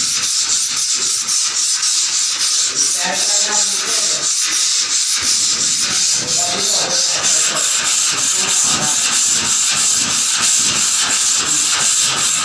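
Abrasive scrubbing of rusty metal in quick, even strokes, several a second, making a continuous harsh hiss.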